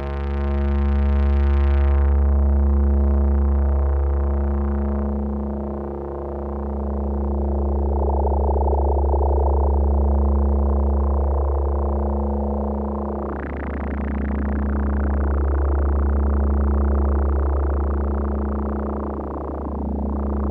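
Roland SH-2 analog synthesizer holding a low, droning bass tone rich in overtones, its loudness swelling and dipping slowly about every six seconds. Just past the middle the tone turns brighter and buzzier as more high overtones come in.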